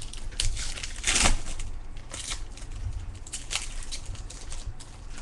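Baseball trading cards being handled, sliding and rustling against one another in a run of short swishes, the loudest about a second in.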